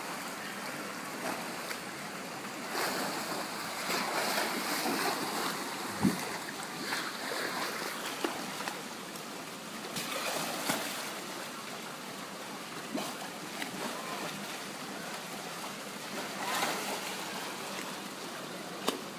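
Water splashing and sloshing in a pool as California sea lions play, over a steady rush of water, with short splashes scattered throughout and a sharp knock about six seconds in.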